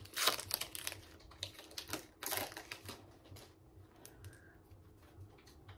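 A baseball card pack being torn open, its wrapper crinkling in a few loud rustling bursts over the first two and a half seconds, followed by light clicks and taps of the cards being handled.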